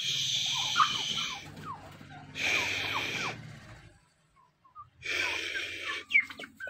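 Broody fowl sitting on eggs hissing three times, each a breathy hiss of about a second, the defensive warning of a sitting bird at an intruder. Brief high chirps come in between.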